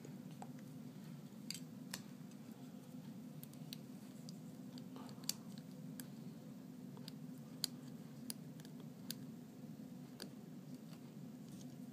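Faint, irregular small clicks and snips of tools and parts being handled while an iPad 2's screen and digitizer are repaired, over a steady low hum.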